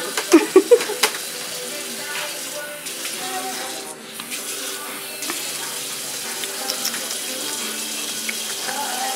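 Bathroom sink tap running steadily. A few short voice sounds come in the first second.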